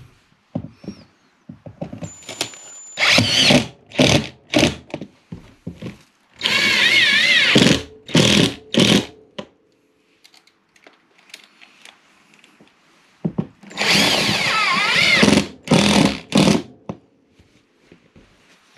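Cordless drill driving screws through cement backer board into an OSB wall, in a string of short trigger bursts and two longer runs of over a second each, about a third and three quarters of the way through. The motor's pitch wavers as each screw bites and seats.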